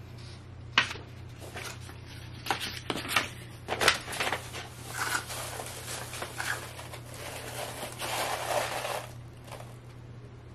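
Paper and packaging being handled during an unboxing: crinkling and rustling, with several sharp taps and clicks in the first four seconds, then steadier rustling from about five seconds in.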